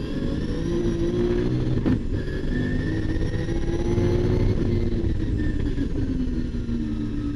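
Nissan RB26 twin-turbo straight-six running at high revs under full throttle, heard from inside the race car's cabin as it accelerates hard. The engine note climbs, breaks sharply about two seconds in, then climbs again.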